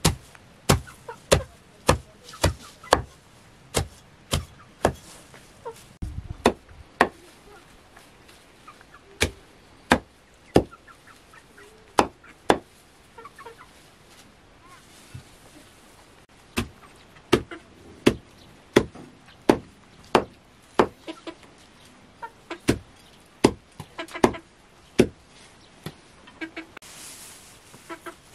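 A knife chopping a heap of fresh greens against a wooden block, sharp strikes in quick runs with pauses between. Hens cluck softly among the strikes.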